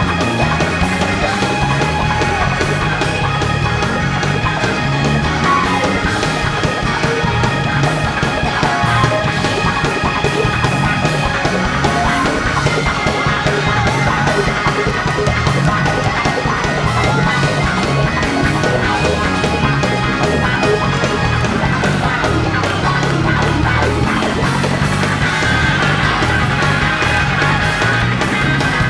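Loud, full band music with a steady beat and held chords, as played by a church band during worship.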